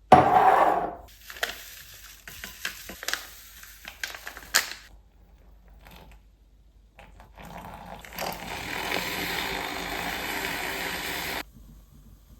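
Household handling sounds: a loud rush at the start, then scattered small clicks and taps, followed by a steady whirring noise for about three seconds that cuts off suddenly.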